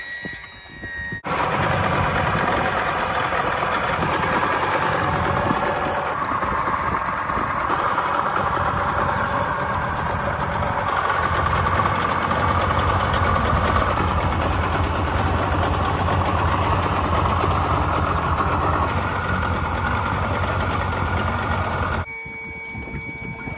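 Yamaha 60 hp two-stroke three-cylinder outboard running steadily with its top cowling off. The sound comes in abruptly about a second in and cuts off suddenly near the end.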